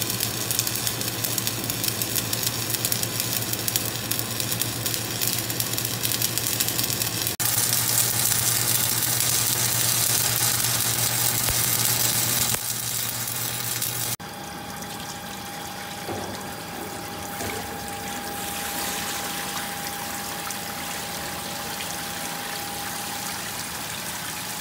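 Arc welding on a steel hydraulic tank, a steady crackling and sizzling over a low electrical hum. After a sudden cut about 14 seconds in, a quieter steady rush of water running into the tank, which is being filled to stand about a day as a leak test.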